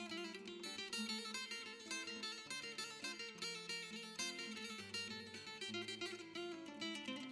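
Background music: acoustic guitar playing quick plucked and strummed notes over a moving bass line.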